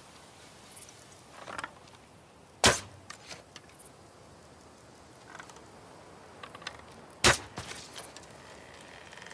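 A bow and arrow shot twice, each a single sharp crack about four and a half seconds apart, with small clicks and rustles of handling between.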